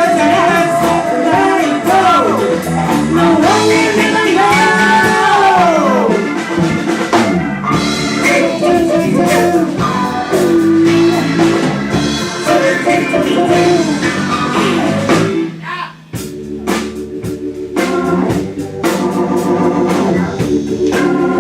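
A blues band playing a funk number, with a short break about three-quarters of the way through before the band comes back in with short repeated hits.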